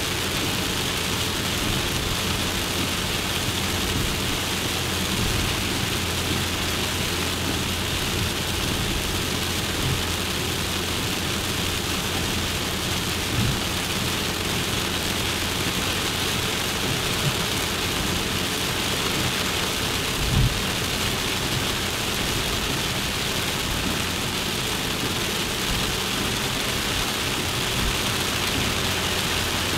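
Suzuki Jimny driving: a steady low engine drone under an even hiss, with two brief thumps, about 13 and 20 seconds in.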